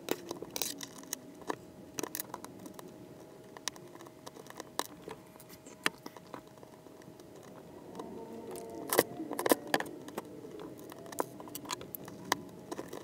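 Small metal washers, screws and nuts clicking and clinking as they are handled and fitted at the hinge mounts of a metal laptop lid, in scattered light clicks with a busier, louder run about two-thirds of the way through.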